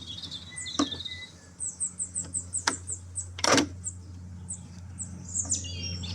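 Small birds chirping in quick, high, repeated notes, with a few sharp knocks, the loudest about three and a half seconds in.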